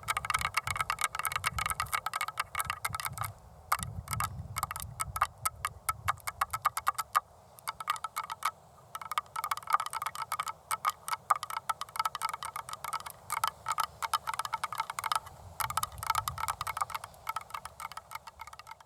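Long acrylic fingernails tapping rapidly on a hard surface: fast runs of clicks with a few short pauses, stopping abruptly at the end.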